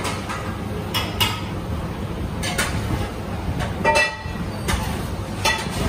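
Steady low rumble of commercial kitchen background noise, with scattered light knocks and clinks from handling dough and steel pans on a steel counter, one of them ringing briefly about four seconds in.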